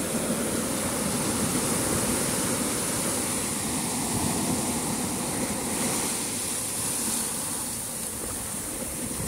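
Steady rush of sea surf and wind with no distinct events.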